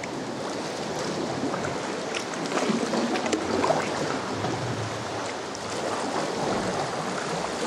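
Water lapping and splashing around a sea kayak as it is paddled across calm sea water, over a steady wash of water.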